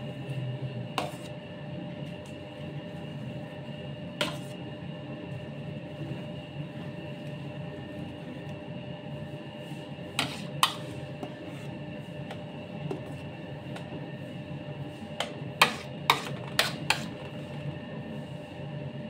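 Sharp clicks and taps of a metal palette knife and spatula on the cake board, turntable or cream bowl while whipped cream is spread on a sponge cake: one early, one near the quarter mark, a pair about halfway and a quick run of four near the end. Under them runs a steady background hum.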